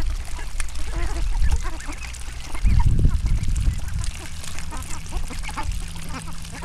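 A flock of ducks dabbling in shallow water: many quick wet bill sounds with soft quacks among them. A low rumble comes about three seconds in.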